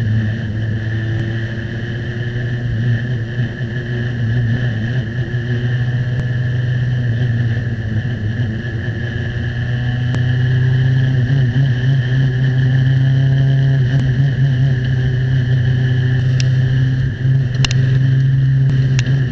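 FE2 open-wheel formula car's engine heard onboard, running steadily at low revs in first gear, about 3,000 rpm, getting a little louder about halfway through. A sharp click near the end.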